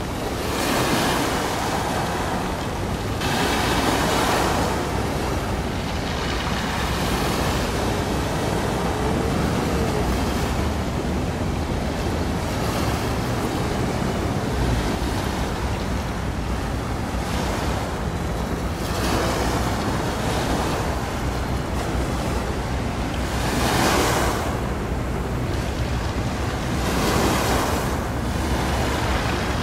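Waves washing against the shore, swelling louder now and then, with wind on the microphone and a steady low rumble underneath.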